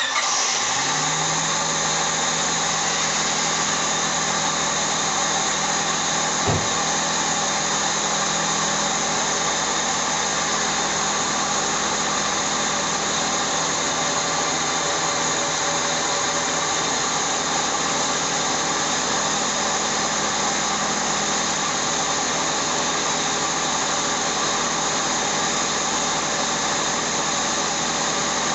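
Honda Civic's 1.6 L non-VTEC four-cylinder engine idling steadily with the radiator cap on after a coolant refill, run so that trapped air can work its way out of the cooling system. A single short click about six and a half seconds in.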